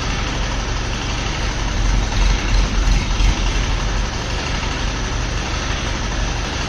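The engine of a 25-tonne crane lifting a heavy lathe runs steadily with a deep rumble. It grows a little louder for a moment about two to three seconds in.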